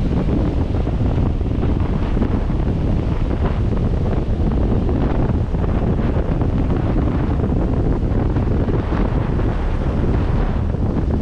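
Wind buffeting the microphone steadily on a vehicle driving slowly along the beach, with surf breaking close by beneath it.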